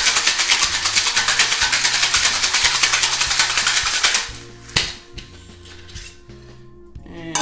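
Ice rattling fast and loud in a metal cocktail shaker, shaken hard for about four seconds and then stopping; a moment later a single sharp knock as the shaker is opened. Background music underneath.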